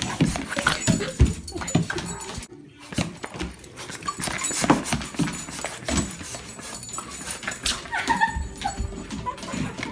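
Excited Boston Terrier scrabbling and lunging, with claws clicking on a tile floor and short high whines near the end.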